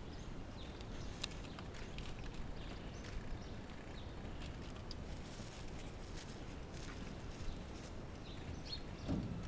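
Quiet outdoor ambience with scattered light knocks and paper rustling as mail is picked out of the crates in a punt.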